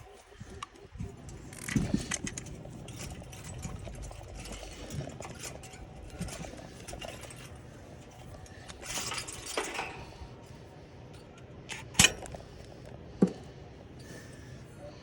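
Rustling and scattered clicks of parts and tools being handled, with a brief swish, then two sharp knocks about twelve and thirteen seconds in.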